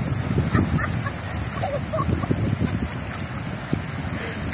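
Wind buffeting the phone's microphone in uneven gusts, over a steady wash of surf.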